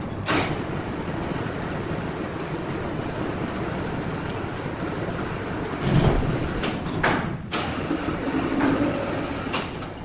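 Sawmill machinery running with a steady mechanical rumble, and sharp metallic clanks once near the start and several times from about six seconds in.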